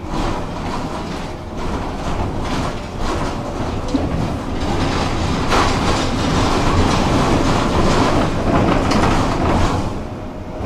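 Tram running along the tracks, heard from inside the car: a steady rumble with wheels knocking over the rail. It gets louder about halfway through and eases off near the end.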